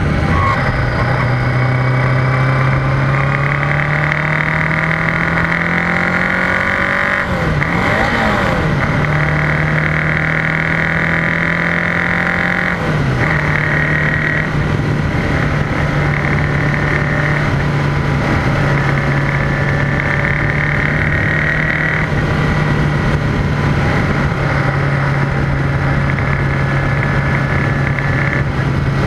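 1978 Honda GoldWing's flat-four engine pulling under way. Its pitch climbs for several seconds, dips and recovers about seven seconds in, then settles into a steady cruise, with constant wind and road noise.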